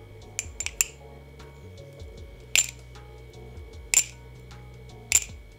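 Nabalis Hydra aluminum balisong trainer being flipped dry, its pivots unlubricated straight out of the box: a few quick light clicks about half a second in, then three sharp metallic clacks of the handles and blade about a second and a half apart.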